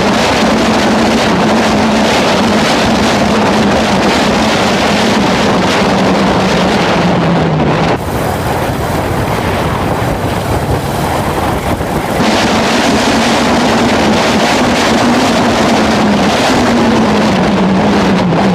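Harley-Davidson Road King being ridden, with heavy wind noise on the microphone over a low drone that slides down in pitch twice as the bike slows.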